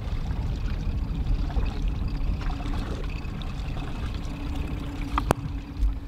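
Water sloshing and trickling against a fishing boat's hull over a steady low rumble, with one sharp click about five seconds in.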